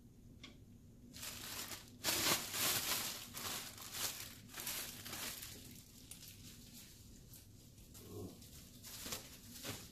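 Plastic bread bag crinkling as it is handled and twisted closed, a run of rustling from about a second in, loudest for a couple of seconds, then a few brief rustles near the end.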